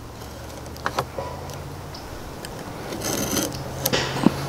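A knife scoring a peel-and-stick tile along a metal speed square: light clicks and taps, with a brief scrape about three seconds in.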